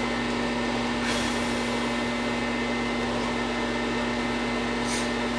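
Steady electrical hum and fan noise from a MIG welder switched on but not welding, with brief faint hisses about a second in and near the end.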